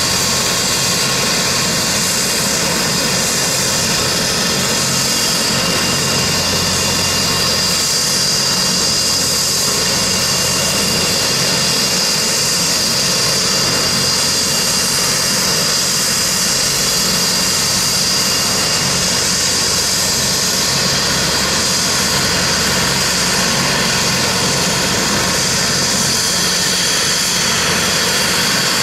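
Agusta A109S helicopter's twin turboshaft engines running on the ground: a steady high-pitched turbine whine over a low hum.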